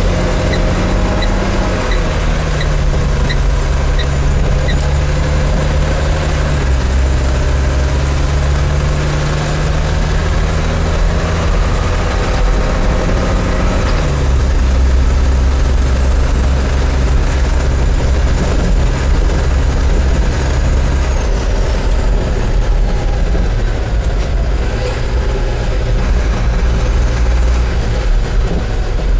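Cummins diesel engine of a 2005 Autocar Xpeditor garbage truck pulling under way, heard from inside the cab, its pitch stepping down twice as the truck changes gear. A high whine rises and falls with it, and a light ticking about twice a second comes in the first few seconds and again near the end.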